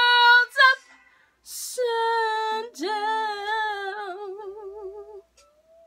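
A woman singing unaccompanied, holding long notes with vibrato. The first note breaks off about half a second in, she takes an audible breath, and then she holds one long wavering note that fades out near the end.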